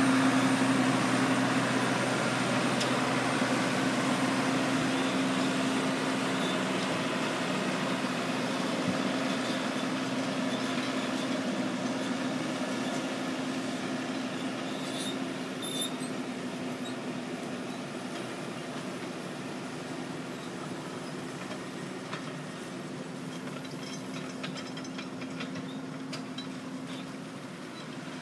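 Farm tractor's engine running steadily as it pulls a rear-mounted implement across the field, with a steady hum that grows gradually fainter as the tractor moves away.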